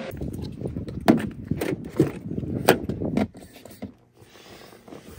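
Laser-cut plywood cup-holder adapter being handled and pushed into a car's cup holder: a quick run of sharp wooden clacks and scrapes over about three seconds, then quieter fumbling.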